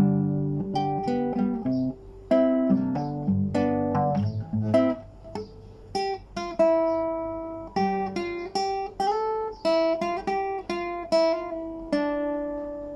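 Solo plucked string instrument playing without a voice: struck chords for the first few seconds, then a picked single-note melody with the notes left to ring.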